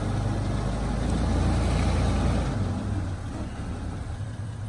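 Off-road 4x4's engine working under load as it crawls over an obstacle, the rumble rising in the middle and easing off about two and a half seconds in.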